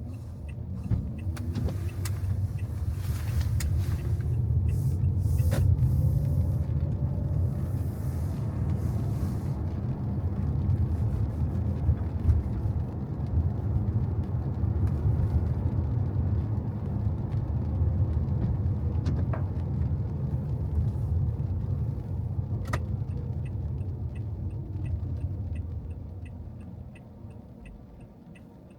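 A car driving on a wet road: a steady low road rumble that builds in the first seconds and fades away near the end, with a hiss of tyres on the wet surface in the first part. Near the end a regular faint ticking sets in, like a turn-signal indicator.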